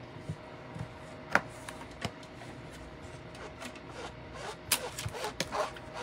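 Scattered light clicks and taps of clear acrylic stamp blocks and craft supplies handled on a tabletop, with one sharper tap about a second and a half in and a quick cluster of clicks near the end.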